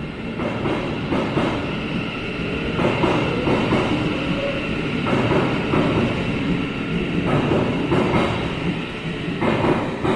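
Thameslink Class 700 electric train pulling out of an underground platform: a steady running noise of motors and wheels, with irregular clicks from the wheels on the track.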